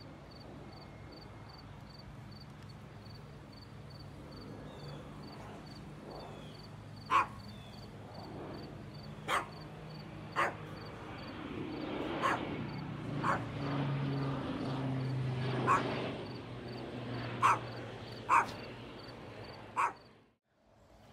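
A dog barking in short single barks, about eight times with gaps of a second or more, over a low steady hum.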